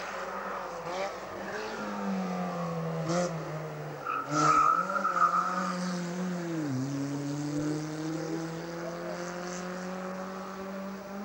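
Zastava 750 'Fića' race car's small engine revving hard through a hairpin. Tyres squeal and there are a few loud knocks about halfway, then the revs drop sharply and climb again.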